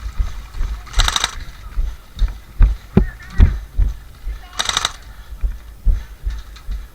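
Airsoft gun firing two short bursts of rapid shots, about a second in and near five seconds in. Low knocks from handling and movement sound throughout.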